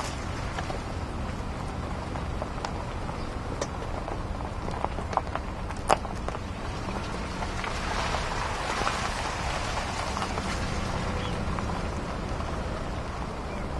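Steady low rumble and hiss of a vehicle rolling slowly over a wet dirt track, with scattered light clicks and one sharp tick about six seconds in.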